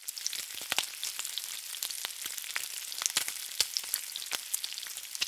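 Food frying in hot oil: a steady sizzling hiss with frequent sharp pops and crackles.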